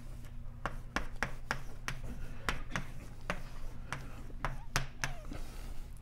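Chalk writing on a blackboard: an irregular run of sharp taps and short scratches, about two to three a second, as letters are written.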